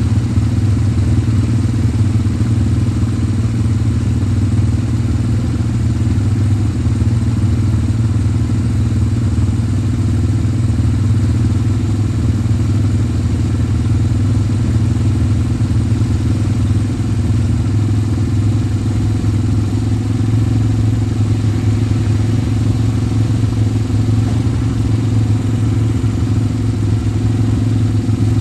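ATV engine idling close by, a low, even drone that holds the same pitch and level without revving.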